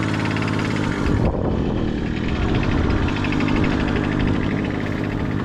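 Small 50 cc motorcycle engine running steadily while the heavily loaded bike is taken up a slope without being ridden.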